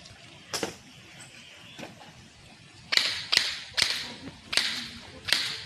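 Airsoft guns firing: one sharp crack about half a second in, then five sharp cracks in the second half, spaced under a second apart.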